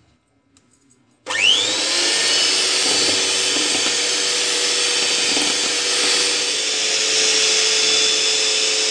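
Electric hand mixer switched on about a second in, its motor whining up to speed and then running steadily at high speed as its beaters whip cream in a bowl.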